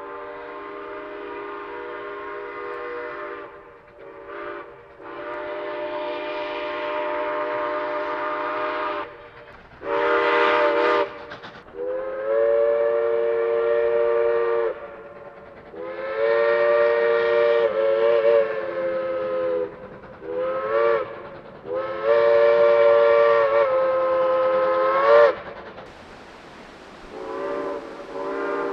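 Multi-chime steam locomotive whistle blown in a series of long and short blasts, several tones sounding together, some blasts sliding in pitch as they open and close.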